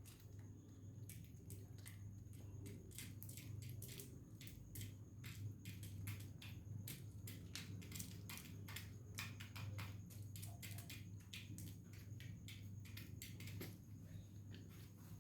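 Rapid, irregular crunching clicks over a steady low hum.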